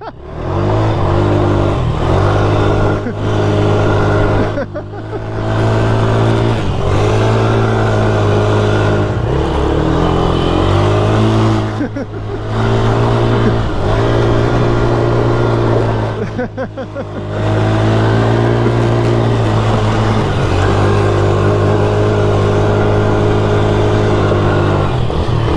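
Polaris Sportsman 110 youth ATV's small four-stroke single-cylinder engine being ridden: it revs up and holds steady under throttle, with the throttle let off briefly about five times.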